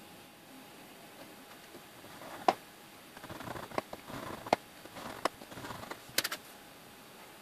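Short scraping strokes of a hand tool drawn along a steel ruler to score a thin metal strip, mixed with sharp clicks. The loudest click comes about two and a half seconds in, and a quick cluster of clicks follows near the end.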